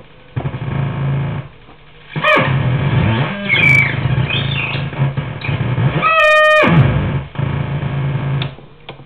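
Homemade noise synth built from a 4093 quad NAND oscillator chip and a 4046 phase-locked loop, giving harsh, distorted buzzing tones that cut in and out with sliding pitch. About six seconds in it holds a steady, high, buzzy tone. It dies away near the end with a few clicks.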